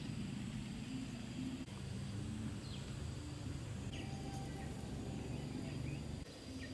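Outdoor ambience: a steady low background rumble with a few brief, falling bird chirps scattered through it.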